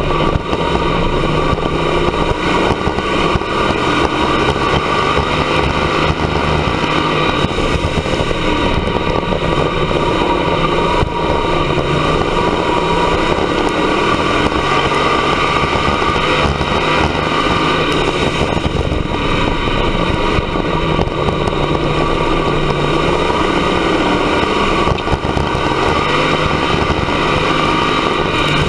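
Dirt track race car engine running hard at racing speed, loud and continuous, heard from inside the cockpit. Its pitch rises and falls with the throttle.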